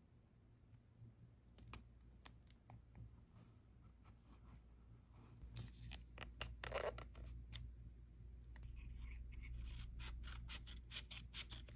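Scissors snipping paper, with a few scattered snips at first and then a quicker run of snips in the second half.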